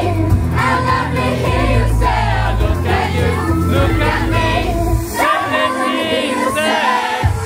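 K-pop dance track played loud over a club PA during a live performance, a heavy bass beat under female vocals. About five seconds in the bass drops out and the voices carry on alone, with one low thump near the end.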